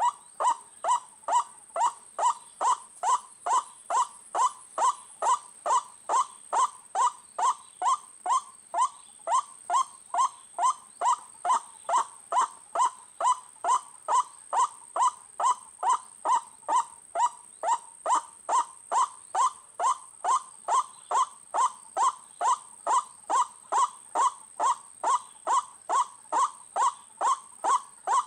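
White-breasted waterhen calls: a short falling note repeated steadily, about twice a second, over a thin steady high whine.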